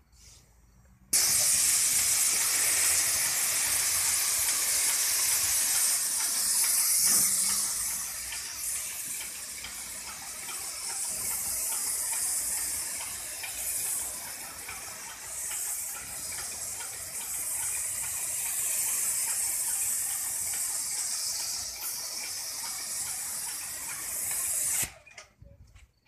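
Airless paint sprayer gun with a 313 tip spraying paint as a steady high hiss, which starts abruptly about a second in when the trigger is pulled and stops sharply near the end when it is released.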